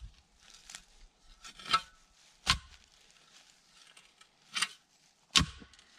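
Four sharp, short knocks and clicks, spread out with quiet between them, from a steel T-post being worked by hand into rocky ground.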